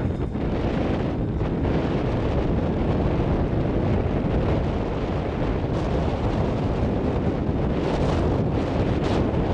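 Wind buffeting the camera microphone: a steady low rumble with no break.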